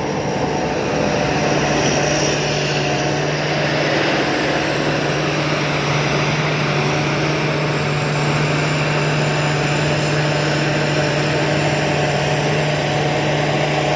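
Rice combine harvester running steadily: a loud, even mechanical drone with a constant low hum, growing slightly louder over the first second or two.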